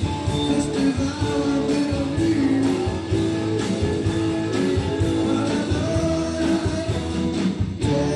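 Blues-rock band playing live: electric guitar over bass and a steady drum beat, in a passage with little or no singing.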